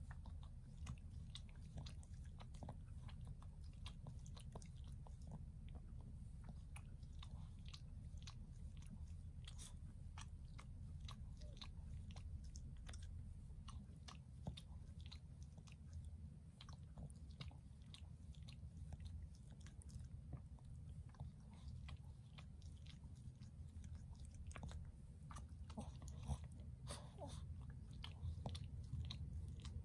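Shih Tzu nibbling and licking at its paw: a long run of faint, irregular mouth clicks and smacks.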